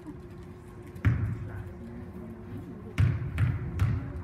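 Basketball bouncing on a hardwood gym floor: one bounce about a second in, then three bounces a little under half a second apart near the end. These are a free-throw shooter's dribbles before the shot.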